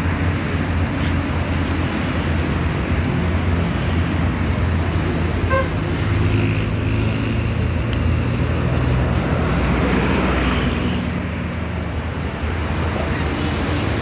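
Large coach's diesel engine running with a low, steady rumble as the bus creeps up the road, with road traffic around it.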